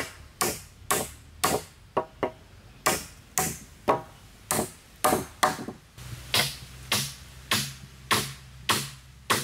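Wood being chopped with a steady run of sharp strokes, about two a second, each ringing briefly.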